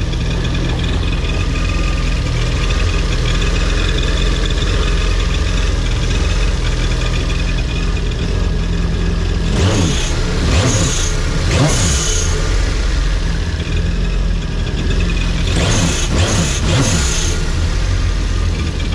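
Yamaha FX SVHO WaveRunner's supercharged 1.8-litre four-stroke engine running under way, freshly rebuilt and on its test ride. Its pitch rises and falls in two spells as the throttle is worked, about halfway through and again near the end.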